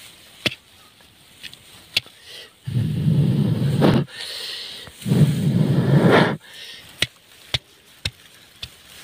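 A man blowing hard twice into a clay smoke pot packed with smouldering cow dung and straw, each blow a loud rush of breath lasting a little over a second, forcing smoke down a rat burrow. A softer hiss falls between the two blows, and a few sharp clicks sound before and after them.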